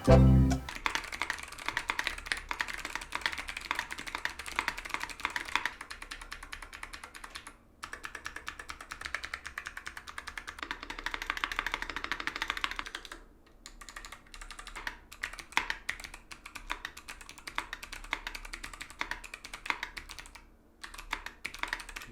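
Mechanical keyboard being typed on: two long runs of fast, dense keystrokes with a short pause between them, then slower, scattered keystrokes for the last third.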